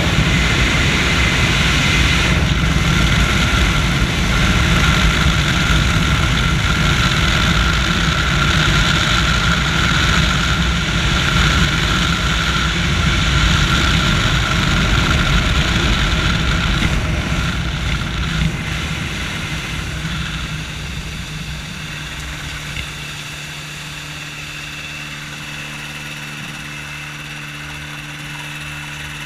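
Float-equipped motorized hang-glider trike: a loud, steady mix of engine, propeller and rushing wind in low flight. About two-thirds of the way in the sound drops away as power comes off for the touchdown on the water. A quieter, steady low engine hum is left while it runs on the floats.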